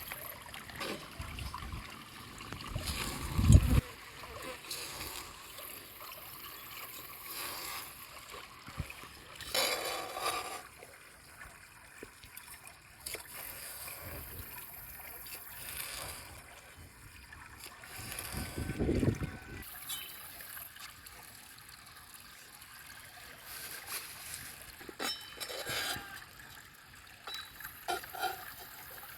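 A river flowing steadily, with irregular short handling noises and low thumps over it; the loudest thump comes about three and a half seconds in.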